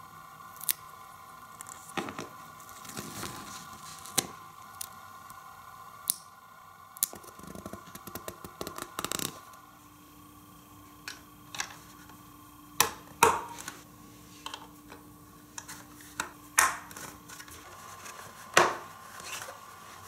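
Small plastic pieces of a Hot Wheels Road Construction track set being handled and fitted together: scattered sharp plastic clicks and snaps, a few much louder in the second half.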